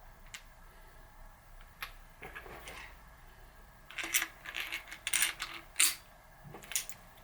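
Small steel parts clinking and clattering against each other: pieces of a bearing press being handled. There are a few light clicks at first, then a busier run of clinks in the second half.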